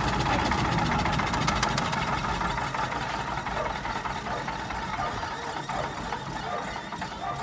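A 10 kW diesel generator set's engine running down as its stop lever is held, its low steady beat fading and dying away about two to three seconds in.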